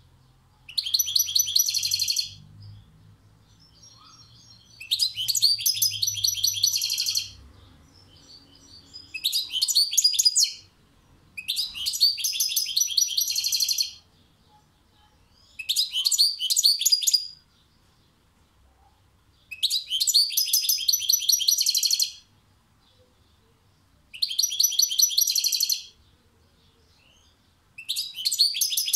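European goldfinch singing in a cage: about eight phrases of rapid, high, jingling notes, each about two seconds long, separated by short pauses.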